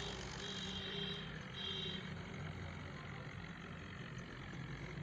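Swaraj 855 tractor's three-cylinder diesel engine running steadily under load while it pulls a heavily loaded trolley.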